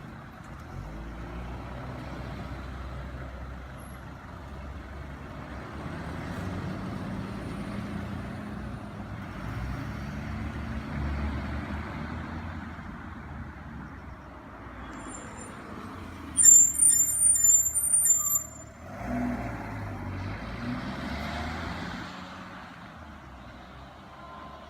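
Road traffic: a heavy vehicle's engine running as it passes at low speed. About two-thirds of the way through, a loud, high-pitched brake squeal lasts about two seconds.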